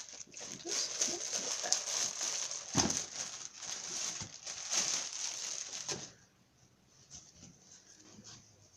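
Packaging crinkling and rustling as a folded t-shirt is unwrapped, a dense crackle of small clicks that stops about six seconds in.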